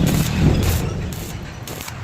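Electric arc welding: the arc crackling and popping irregularly over a low hum.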